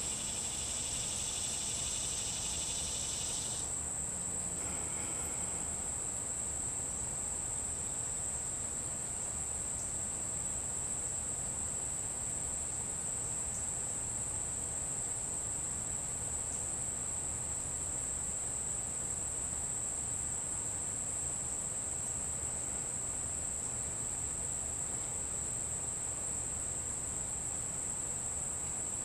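Insects singing: a steady, high-pitched trill that runs on without a break. A faint hiss under it stops about four seconds in.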